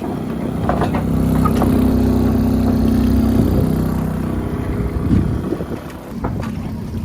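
Motorboat engine running steadily, getting louder about a second in and easing off near the end.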